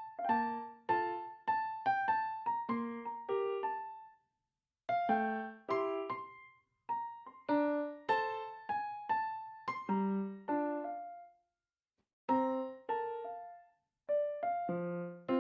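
Background piano music: a gentle melody of single struck notes that ring and fade, breaking off into full silence three times.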